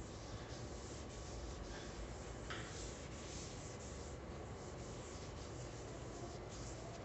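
A folded paper towel rubbed back and forth over a wooden cutting board, spreading a liquid finish, in faint, uneven rubbing strokes.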